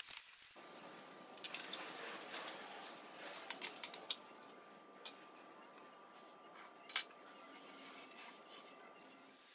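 Scattered light metal clinks and ticks of a small spanner working the bolts and nuts on a CNC gantry plate, the sharpest near the seven-second mark, over a faint steady hiss with a thin hum.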